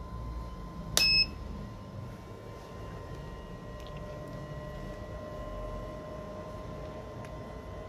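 A single short, loud electronic beep from a DIY solar generator's power inverter as it is switched on, followed by a faint steady electrical hum with thin whining tones.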